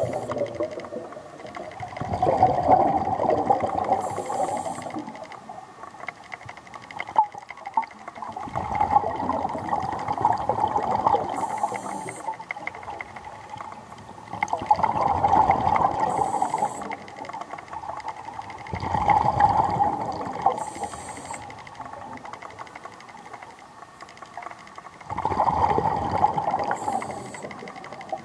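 Diver breathing through a scuba regulator underwater: about five breaths, one every five to six seconds. Each breath is a few seconds of gurgling bubbles with a short, high hiss.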